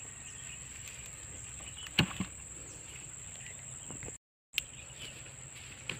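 Outdoor field ambience dominated by a steady, high-pitched drone of insects. Two short, sharp knocks come about two seconds in, and the sound cuts out completely for a moment just past four seconds.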